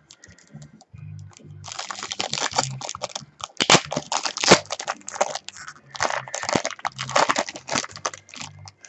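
Crinkling and tearing of a trading-card pack's wrapper being torn open and handled, a dense run of sharp crackles starting about two seconds in.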